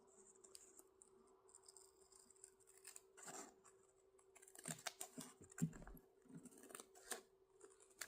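Faint scissors snipping and fabric being handled: a scatter of small sharp clicks, denser in the second half, over a faint steady hum.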